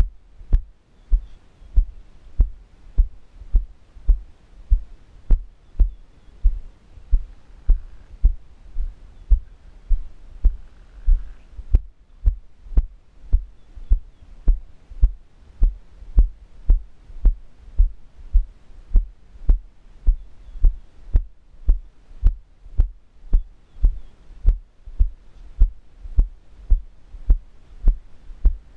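Footsteps thudding through a body-worn camera as the wearer walks at a steady pace on a stony dirt path: an even train of low thumps, each with a faint click, a little under two a second.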